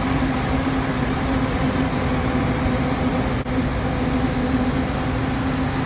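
Parked city bus idling: a steady low rumble with a constant hum over it. The sound drops out very briefly about three and a half seconds in.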